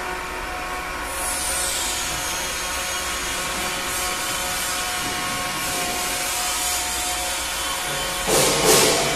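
Handheld electric immersion mixer with a stainless-steel cone shaft running in a basin of liquid honey mixture: a steady motor whine with the churning of the liquid. A high whine drops in pitch about a second in, and a louder rush of churning lasts about a second near the end.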